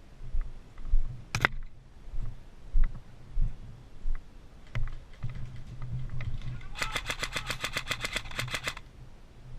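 Airsoft gun firing a full-auto burst of about ten shots a second, lasting about two seconds, about two-thirds of the way in. Before it there is a single sharp snap about a second and a half in, over low uneven thumps.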